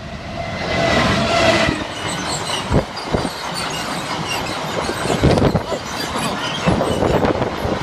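A Class 66 diesel-electric locomotive passes at speed hauling a freight train. Its engine note falls slightly in pitch as it goes by, then the wagons' wheels rumble and clatter over the crossing with a few sharp knocks.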